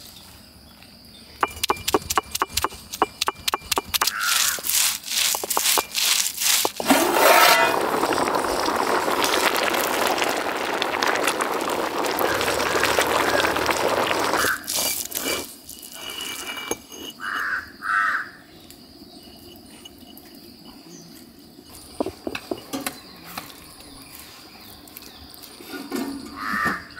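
Garlic being worked by hand: a quick run of sharp knocks, then several seconds of dense, steady rough noise, then a few scattered knocks. Crows caw a couple of times in the background near the end.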